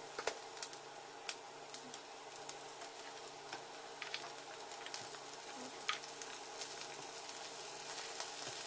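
Blue crabs being dropped one at a time into a hot pan of sautéing garlic, ginger and onion: a steady sizzle with irregular sharp clicks of shell against pan.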